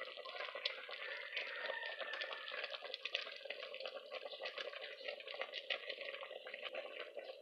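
Pot of chicken afritada stew simmering, bubbling with a dense patter of small pops and crackles.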